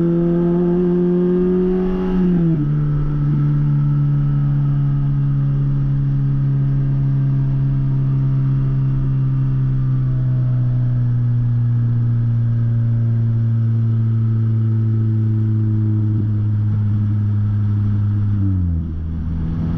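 Lotus Elise's four-cylinder engine pulling under steady throttle, heard from the open cockpit. Its note climbs slightly, drops sharply about two seconds in as it shifts up, then holds nearly steady. It falls again with a brief dip in loudness near the end.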